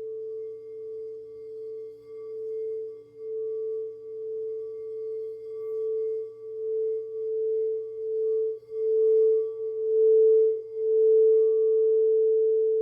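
Singing bowl holding one steady ringing tone that swells and fades in slow waves and grows louder toward the end.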